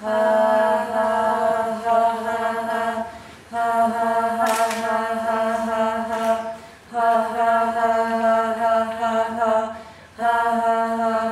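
Unaccompanied chant-like singing: long notes held at a steady pitch, about three seconds each, with short breaks between.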